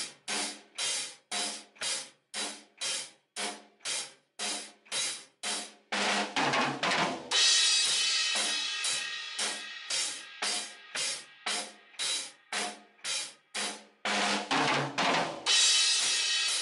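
A beginner playing a Tama drum kit: a steady beat of about two hits a second, joined about seven seconds in by cymbals that ring on over the beat. Near the end a quick run of hits leads into a cymbal crash left ringing.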